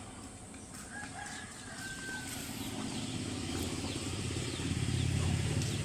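A rooster crowing faintly in the distance, then the low, fast-pulsing rumble of a small engine growing steadily louder, as of a passing motorcycle or vehicle.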